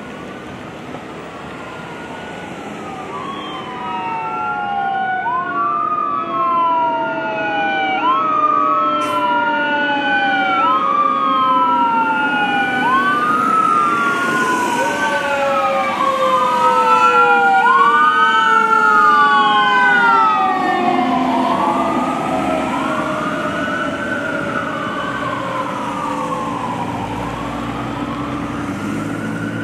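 Fire engine siren sounding on an approaching rig: repeated rising and falling wails, with a lower tone sliding slowly down underneath. It grows louder as the engine nears, is loudest a little past halfway, then eases off.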